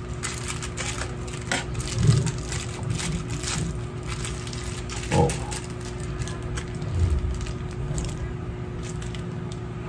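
Aluminium foil crinkling and crackling as it is folded and pressed around a whole fish, with a few dull thumps along the way.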